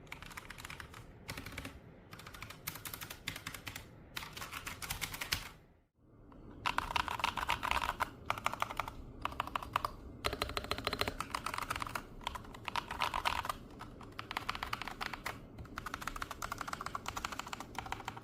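Typing in bursts on a Womier VK68 hot-swap mechanical keyboard. The sound breaks off briefly about six seconds in: the first part is the stock board, and the louder, fuller-sounding typing after the gap is the same board after mods.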